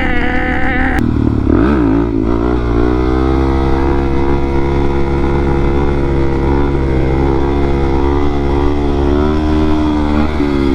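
Motorcycle engine under way. It revs high, then drops off sharply about a second in and picks back up, then holds mostly steady revs with slight rises and falls, and dips and climbs again near the end.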